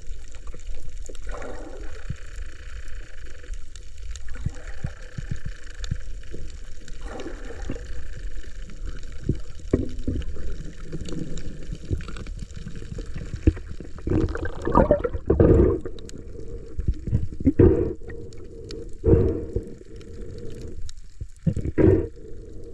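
Muffled water sloshing and gurgling, with irregular louder surges in the second half.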